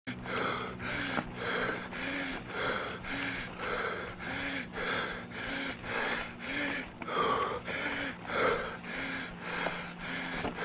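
Mountain biker breathing hard in an even, rhythmic pant, a little under two breaths a second, with a faint steady hum underneath.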